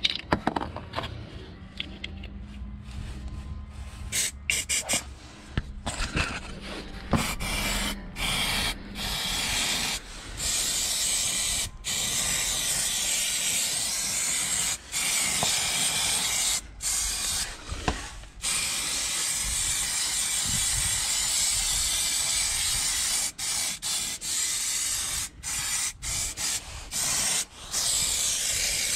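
Aerosol can of rust-protection paint hissing as it sprays, in bursts broken by short pauses, with a long unbroken spray through the middle.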